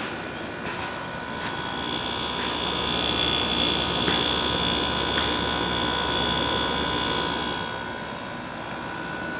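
2001 Sharp Comfort Touch 5000 BTU window air conditioner running, a steady rush of its fan with a few steady tones. A higher whine swells in about two seconds in and fades again near the end.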